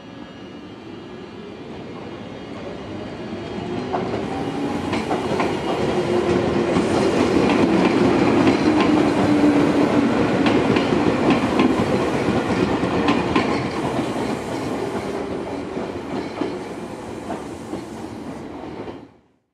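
Chichibu Railway 7500-series electric train pulling away from the platform and passing close by. Its rising motor hum builds for the first several seconds under wheels clicking over rail joints. The sound fades as the train goes, then cuts off suddenly near the end.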